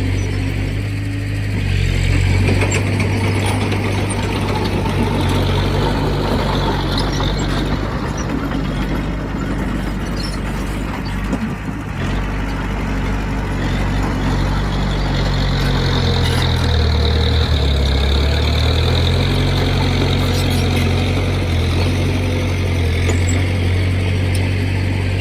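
Heavy diesel engine of earthmoving machinery running steadily under load. About two-thirds of the way through its pitch dips briefly, then recovers.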